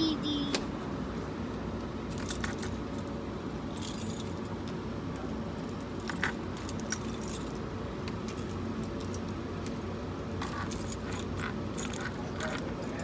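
A bunch of keys hanging from a car's ignition jingling and clinking as a small child's hand fiddles with them, in short spells of clinks scattered through, over a steady low hum.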